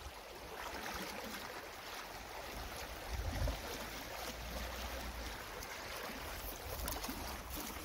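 Small shallow stream running and rippling steadily over its stony bed, its water up after rain. A low rumble comes about three seconds in.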